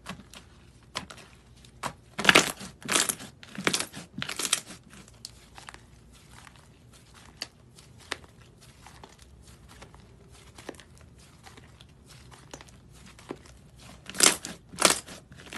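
Hands squeezing and kneading soft slime, popping its air pockets: scattered small clicks, with runs of louder crackling pops about two seconds in and again near the end.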